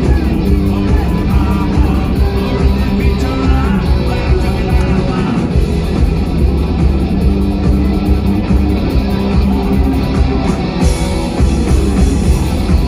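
A live rock band playing: electric guitars over drums and keyboard, with a heavy low end.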